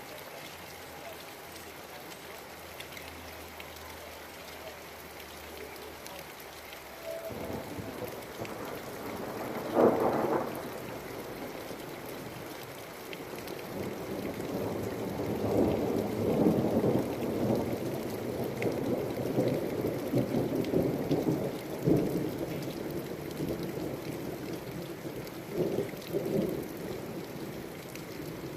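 Thunderstorm: rain falls steadily, then thunder cracks loudly about ten seconds in and rolls on in a long, uneven rumble that swells and fades again several times.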